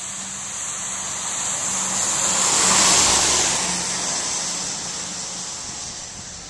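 A car passing by on a wet road: tyre hiss and engine noise swell to a peak about three seconds in, then fade away. A steady low hum runs underneath.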